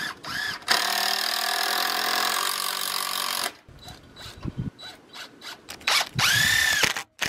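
A DeWalt 20V cordless drill running under load into a timber beam for about three seconds. Near the end comes a second, shorter run that spins up, holds, and winds down.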